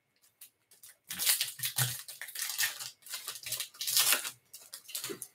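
A baseball card pack's plastic wrapper being torn open and crinkled by hand. It starts about a second in and goes on in irregular crackly bursts until near the end.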